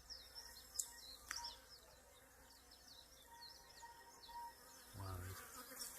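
Faint buzzing of honeybees swarming over combs lifted from an open top-bar hive, with short high chirps throughout.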